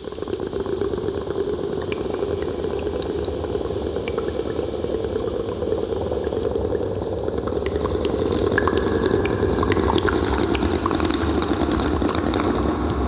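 Water bubbling and gurgling steadily in a large round glass flask as air or smoke is drawn through it by mouth, as in a homemade water pipe, with many small bubble pops.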